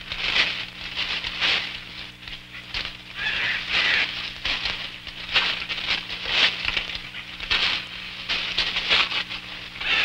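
Leaves and branches rustling and crackling in irregular bursts as a person pushes through dense jungle undergrowth, over a steady low hum.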